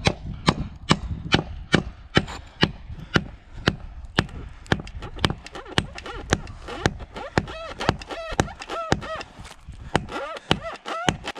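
Rock hammer striking a steel chisel wedged into a saw cut in a tree trunk, steady sharp blows about two a second, each with a short metallic ring. The chisel is being driven in as a wedge to open the cut and free a chainsaw bar pinched in the tree.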